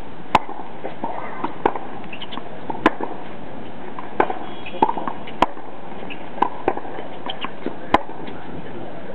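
Tennis racket striking the ball in a baseline rally: four sharp pops about two and a half seconds apart, with softer knocks between them, over a steady hiss.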